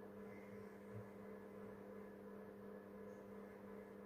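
Near silence: a faint, steady electrical hum in the room tone.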